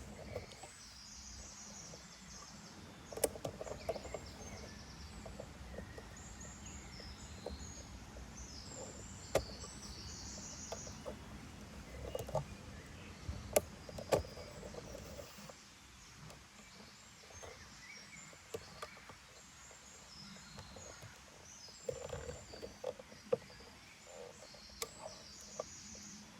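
Birds chirping in short, high, repeated notes over a low steady outdoor rumble that eases off about halfway through, with scattered sharp clicks.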